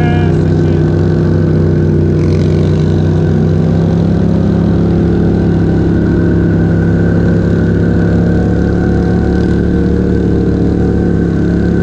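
Polaris Sportsman 1000 ATV's twin-cylinder engine chugging along steadily at low revs under light load.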